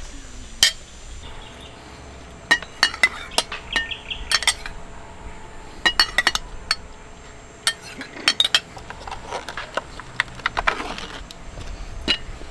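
Dishes and utensils being handled, with scattered sharp clinks and knocks in irregular clusters.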